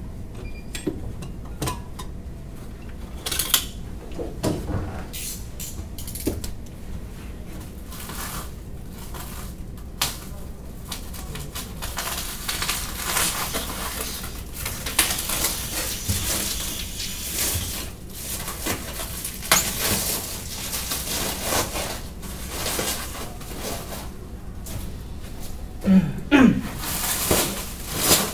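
Scattered clinks and knocks of metal parts and tools being handled, with a longer stretch of rustling in the middle. A short pitched sound and the loudest knocks come near the end.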